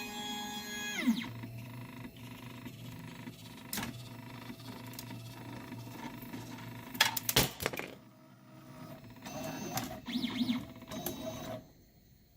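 Ultimaker 3 3D printer's stepper motors whining as the print head moves, the pitch gliding down as a move ends about a second in. A low steady hum and faint ticking follow, then a few sharp clatters around seven seconds in and more short motor whines before it goes quiet near the end.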